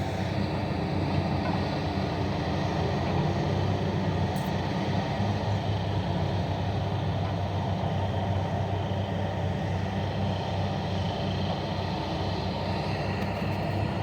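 Heavy diesel mining machinery running at a steady, even engine note.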